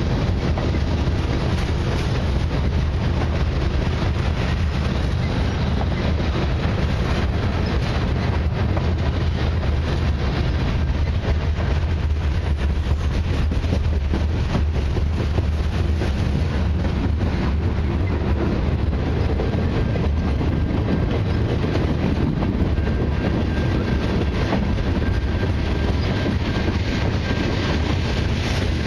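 Freight cars of a long mixed freight train (covered hoppers, a boxcar and tank cars) rolling past at close range: a steady heavy rumble of steel wheels on rail with irregular clicks and clanks. A faint, thin, steady high whine joins in about two-thirds of the way through.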